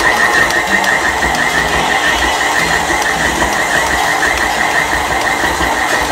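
KitchenAid Classic Plus stand mixer running at fast speed, kneading an enriched bread dough in its steel bowl: a steady, high motor whine that pulses quickly, over a low rumble. The dough has come together and pulled away from the sides of the bowl.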